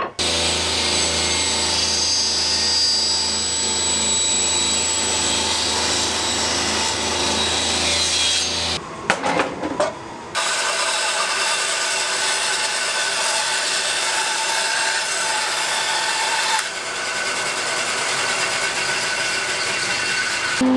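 Woodworking power saws running. First a machine with a strong low hum runs steadily for about nine seconds. Then come a few knocks of wood being handled, and then a band saw runs steadily, cutting a walnut board.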